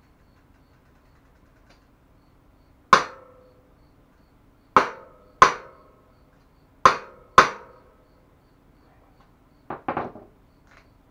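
Hammer blows on metal: five sharp strikes, each with a short ringing tail, spaced about a second apart, then a quick, lighter clatter of knocks near the end.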